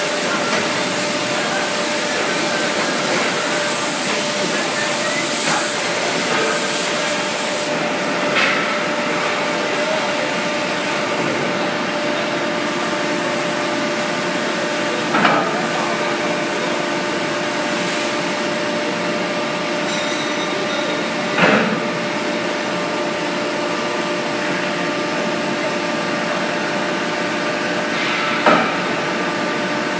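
Steady mechanical hum of a steel-pipe transfer line running in a workshop, with a high hiss that stops about eight seconds in. Sharp metal knocks come every six or seven seconds, four in all, as the steel pipe is handled on the transfer stands.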